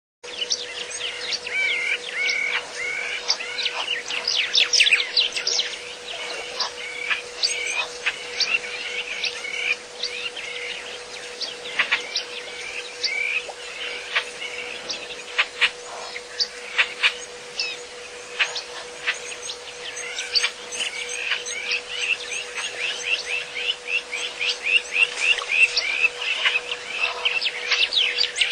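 Many small birds chirping and calling in a dense, continuous chorus of quick repeated chirps, over a steady faint hum.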